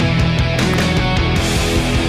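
Loud heavy rock music with a steady beat.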